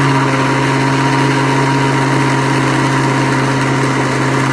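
Electric mixer grinder (blender) motor running steadily at full speed, whipping chilled cream in its jug: a constant hum over a loud whirr.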